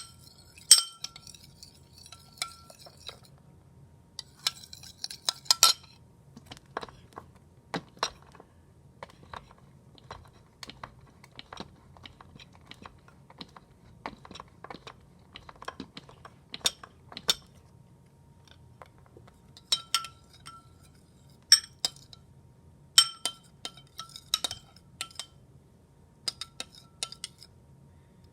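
A spoon clinking and tapping against a bowl in irregular strikes, some with a short ring, while a slime mixture is stirred. The strikes come in clusters near the start, a few seconds in, and again through the last third.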